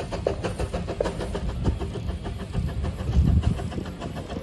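Narrow-gauge steam locomotive working a train, its exhaust beating rapidly at about six chuffs a second for the first second and a half, then a louder low rumble about three seconds in.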